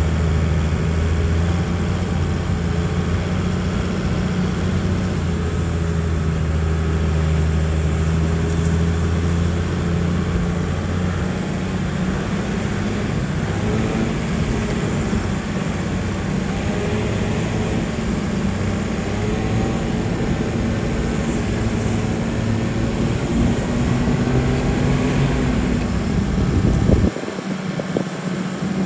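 A four-wheel-drive off-road vehicle's engine running steadily under load. Its note shifts about ten seconds in, and the low engine sound drops away abruptly near the end.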